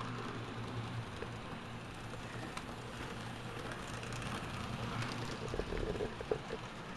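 N-scale model freight train running on layout track: a low, steady electric hum under a faint running whir, with a few light clicks near the middle and toward the end.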